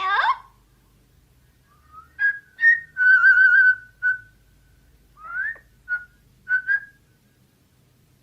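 Parrot whistling: a short harsh call at the start, then a string of whistled notes, including a longer wavering note about three seconds in, a rising whistle around five seconds, and a few short notes near the end.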